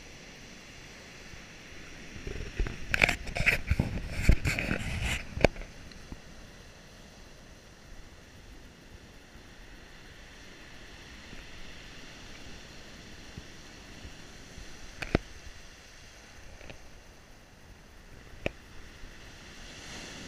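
Surf breaking and washing up a pebble beach as a steady rush of water. From about two and a half to five and a half seconds in comes a burst of loud, crackling knocks with a low rumble, the loudest part, followed later by two single sharp clicks.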